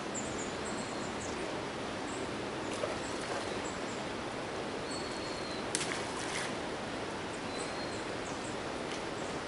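Outdoor ambience: a steady rushing hiss with small birds calling in short high chirps and a few thin whistled notes. There are a couple of sharp clicks about six seconds in.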